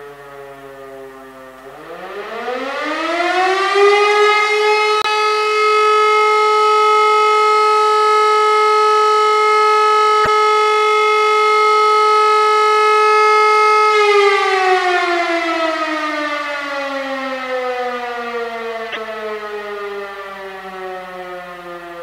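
Fire-brigade siren sounding the German 'Feueralarm' signal. The tone is falling at first, winds up about two seconds in to a steady wail, holds it for about twelve seconds, then winds slowly down again. This is one of the signal's three 12-second continuous tones.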